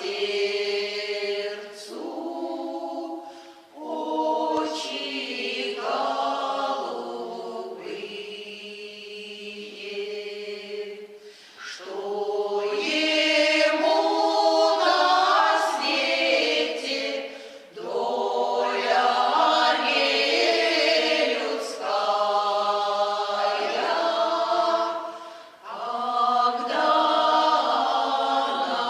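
A choir singing a cappella, several voices in harmony, in long phrases with short breaks between them.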